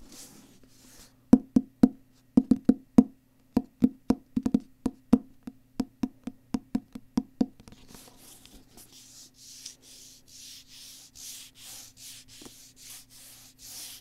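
Fingers tapping on the cover of a hardcover book held right at the microphone: a quick, irregular run of sharp taps starting about a second in and lasting about six seconds. Then fingertips rub and scratch across the cover in soft, repeated strokes, roughly one or two a second.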